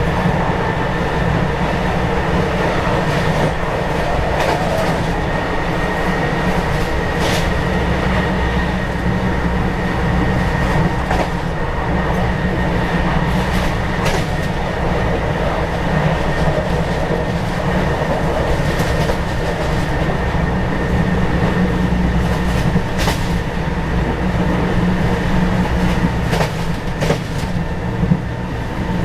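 KRL commuter electric train running at speed, heard from the front cab: a steady low rumble with occasional sharp clicks as the wheels cross rail joints.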